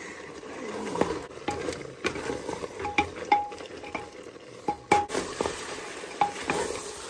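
Pork leg pieces and spices being stirred in a cooking pot with a spoon, with repeated irregular clinks of the spoon against the pot over a faint sizzle.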